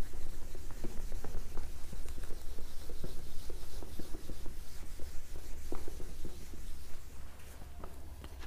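A whiteboard being wiped clean by hand: repeated rubbing strokes with many small ticks, dying away after about seven seconds.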